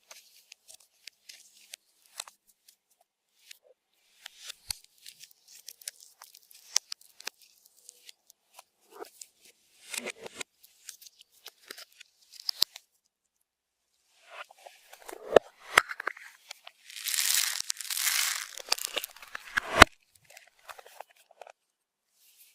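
Slime being kneaded and pressed by hand, with irregular sticky crackles and small popping clicks; a louder, denser stretch of crackling comes about three quarters of the way through and ends on a sharp click.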